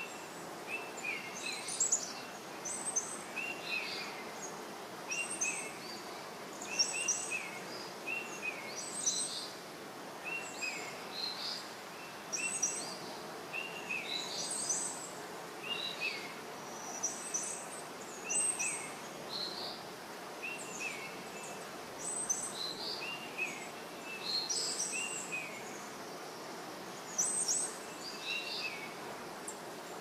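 Small birds calling over and over, short sharp chirps about once or twice a second, over a steady outdoor hiss.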